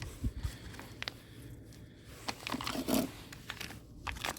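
Scattered light clicks and taps as parts are handled and fitted around a pickup's pedal: an aluminium slip-on pedal cover going onto the stock pedal. There is a short, duller low sound about three seconds in.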